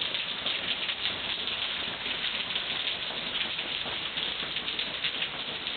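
Heavy rain falling on paving and a swimming pool: a steady, dense hiss of many drop splashes.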